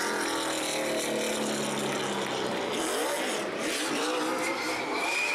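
NASCAR stock car's V8 engine revving up and down as it spins its rear tyres in a victory burnout, with a high tyre squeal setting in near the end.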